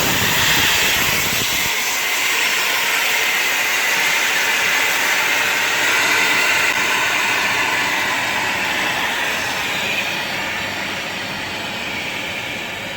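Steam hissing steadily out of a Zhar Gorynych bathhouse stove's closed heater after water has been poured onto the hot stones. A low rumble under the hiss drops away a couple of seconds in, and the hiss slowly fades toward the end as the steam runs out.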